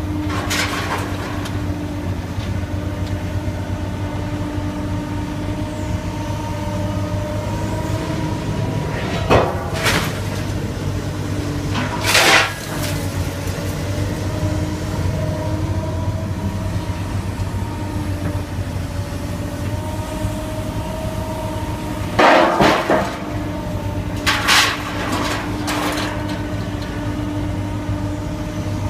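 Heavy demolition machinery dismantling scrap cars: a steady engine and hydraulic drone, with a handful of sudden loud metal crashes and crunches as car bodies are torn apart.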